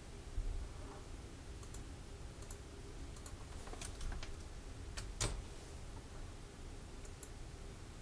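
Computer mouse button clicks: a handful of sharp clicks, several in quick pairs, the loudest about five seconds in, over a faint low hum.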